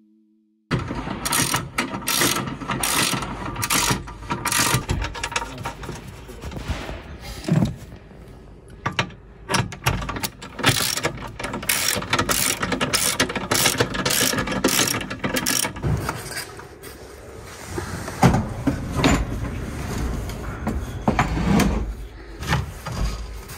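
Hand tools working the bolts of a seat swivel base: ratchet-like clicking and metal clicks and clanks. It starts suddenly about a second in, runs in quick, even strokes for several seconds, then turns into irregular clicks and knocks.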